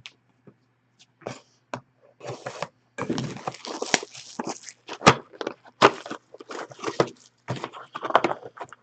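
A sealed hockey card box being opened by hand: plastic wrap crinkling and tearing, with cardboard and a pack being handled in quick irregular bursts of rustling and clicks.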